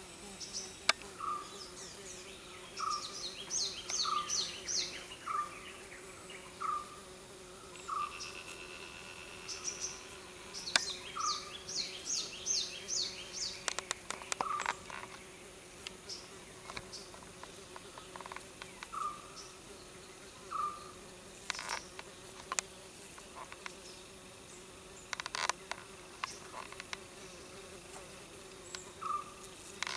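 Carpenter bee buzzing steadily. Short chirps repeat about once a second at times, with brief runs of rapid high-pitched notes and a few sharp clicks.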